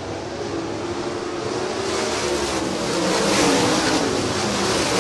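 A pack of 410 winged sprint cars racing on a dirt oval: several V8 engines at full throttle, their pitches sliding up and down as they pass. It grows louder over the first three seconds.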